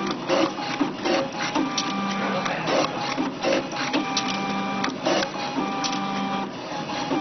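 A two-lane paper-handling machine running, feeding printed leaflets out through its rollers into two trays. There is a rapid run of clicks and paper slaps over a motor whir whose tones cut in and out every second or so.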